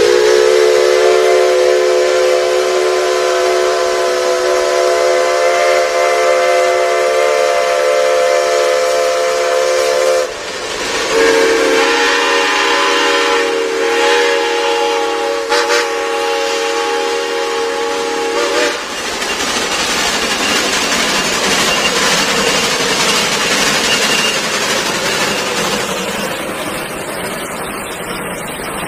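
Steam whistle on a Shay geared steam locomotive sounding two long blasts of a steady multi-note chord, the first about ten seconds long and the second about seven. After the blasts come the hiss of steam and the noise of the locomotive running.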